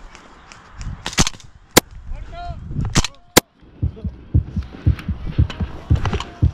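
A handful of sharp airsoft replica shots in the first half, then steady low thumps of the player's footsteps, about two to three a second, as he moves over rough ground.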